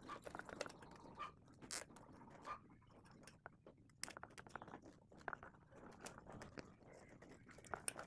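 Faint rustling and small scattered clicks of insulated wires being handled and bunched together inside an opened welding machine's metal case.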